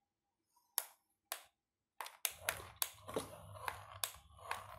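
Small electric motor of a radio-controlled toy car starting up about two seconds in with a low hum, and a fast run of sharp clicks over it. Two isolated clicks come before it.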